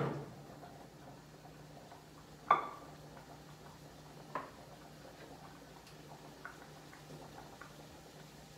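Kitchen pots and utensils being handled: a few sharp knocks, the loudest about two and a half seconds in and another about four seconds in, then faint scattered ticks over a low steady hum.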